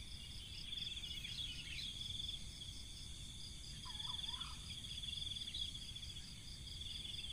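Insects trilling in a steady, evenly pulsing high-pitched chorus, with a short faint bird call about four seconds in.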